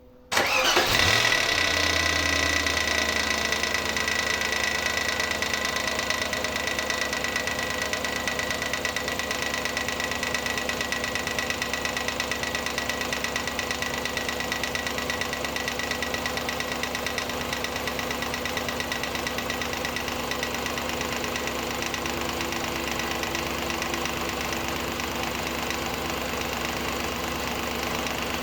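Audi A8 D2's 4.2-litre ABZ V8 starting up, catching within about a second and settling into a steady idle. It is being listened to for a knock traced to the area of the timing-belt cover.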